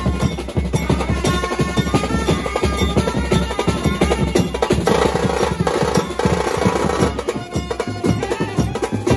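Street brass band playing: saxophones, trumpet and clarinet carry the tune over steady drumming on hand-held drums.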